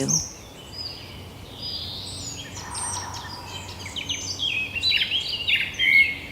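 Forest birds chirping and whistling, several birds calling over one another in short quick phrases, over a faint steady low background hum.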